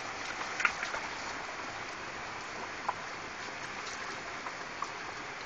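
Torrential downpour: heavy rain falling steadily, with a few scattered sharp ticks.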